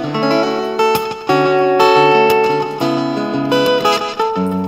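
Cutaway acoustic-electric guitar played through a Mr.7 GA-40R 40-watt guitar amplifier: a tune of picked single notes and chords, each note ringing on, with a few strums.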